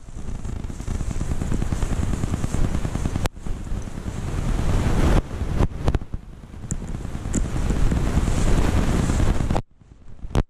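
Wind rumble and handling noise on the microphone while walking through forest undergrowth, with a few sharp clicks. It cuts off suddenly near the end.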